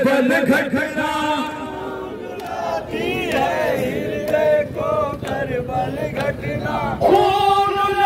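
Group of men chanting a noha, a Shia mourning lament, together over a public-address microphone, with the crowd's voices joining in.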